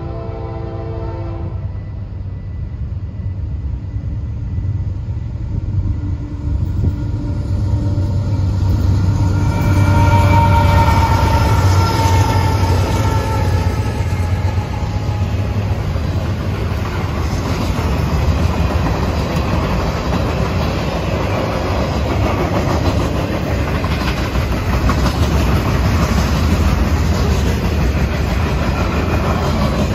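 Norfolk Southern freight train passing at speed. The diesel locomotive's horn sounds briefly at the start, then the locomotive's engine rumble builds to its loudest about ten seconds in as it goes by. The freight cars follow with a steady rolling wheel-on-rail noise.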